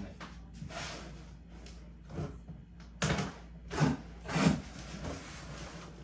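Cardboard shipping box being opened by hand: its flaps and the paper insert inside scraping and rustling in a few short bursts, the loudest between about three and four and a half seconds in.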